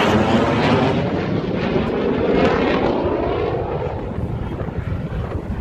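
Jet fighter flying past with a loud roar, its pitch shifting as it goes by and the sound fading over the last couple of seconds.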